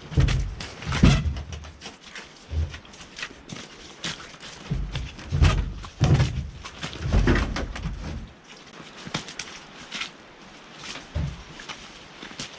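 Irregular heavy thuds and knocks, the loudest clustered in the first second and between about five and seven seconds in, like gear being handled and set down.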